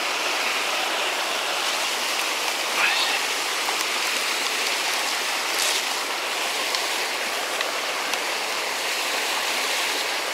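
Steady rushing of running water, an even hiss with no rhythm.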